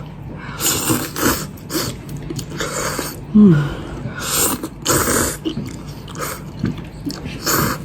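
A person slurping and chewing hot and sour sweet-potato noodles: about five short, separate slurps.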